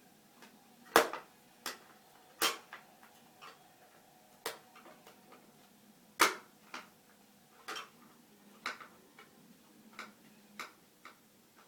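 Irregular clicks and light taps of small computer parts and tools being handled on a hard surface, roughly one or two a second, the two loudest about one second in and about six seconds in.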